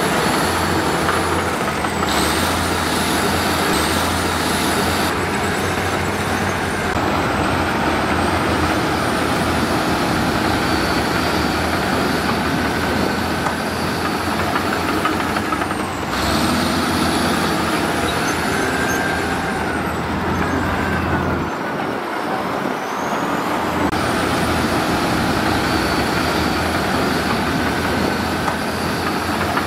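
Heavy diesel construction machinery running under load: a steady engine drone with a high whine that rises and falls several times, changing abruptly a few times along the way.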